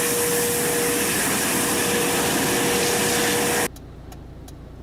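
Steady loud rushing roar of a rocket exploding just after liftoff, with a faint steady hum under it. It cuts off suddenly about three and a half seconds in, leaving faint regular ticks about two a second.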